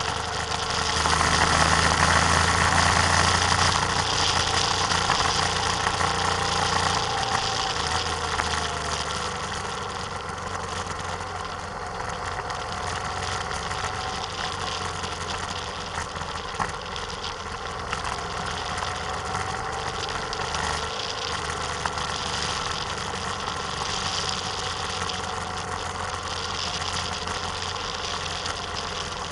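Vehicle engine running while driving, with steady wind and road noise on the microphone; the engine is louder for the first several seconds, then settles to an even drone.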